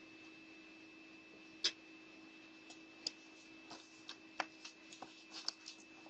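Irregular sharp clicks and knocks: footsteps on the porch and a large cardboard box being handled and lifted, close to a Ring doorbell camera's microphone. Under them runs the camera's own steady faint electronic whine and hum.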